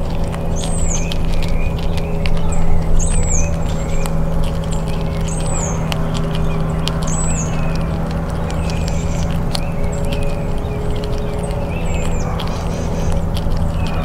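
Gray squirrel chewing a peanut close to the microphone: a run of small crunching clicks. A bird gives a short high call about every two seconds over a steady low hum.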